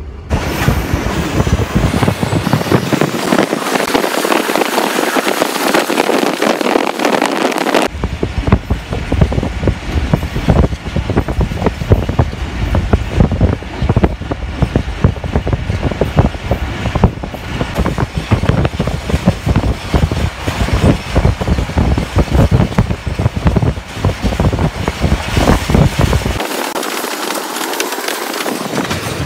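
A train running along the line, heard from inside a carriage by the window: a loud rush of noise with a dense rattle and clatter of the carriage and its wheels on the rails. The sound changes abruptly about eight seconds in.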